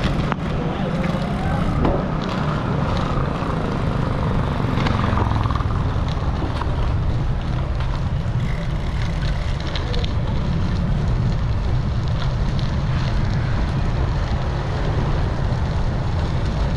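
Wind buffeting the microphone of a helmet or bike-mounted action camera while riding a bicycle: a steady low rumble throughout, with a few faint clicks.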